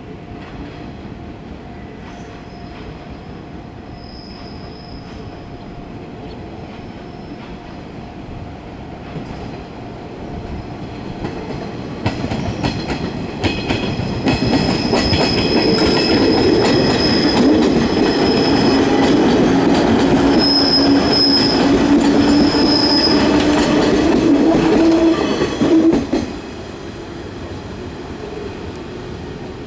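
A JR 113-series electric multiple unit approaches and passes close by. Its rumble builds from about ten seconds in, with rapid rail-joint clicks, high wheel squeal, and a whine that rises in pitch as the cars go past. The noise drops away sharply near the end as the last car clears.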